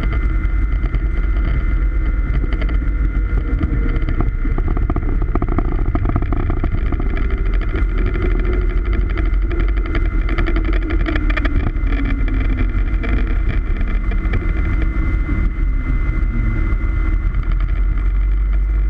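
Cessna 182T's six-cylinder Lycoming IO-540 engine and propeller running at low power, heard from inside the cockpit as the plane rolls out after landing. The steady drone carries a lower tone that slides down in pitch in the middle.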